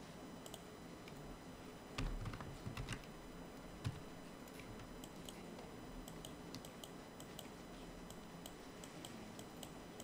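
Faint computer keyboard and mouse clicks: a few louder clicks about two to four seconds in, then a run of light, quick clicks.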